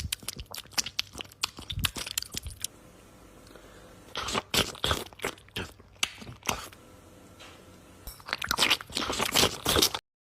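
Irregular crunching and clicking, coming in clusters with quieter gaps, that stops abruptly near the end.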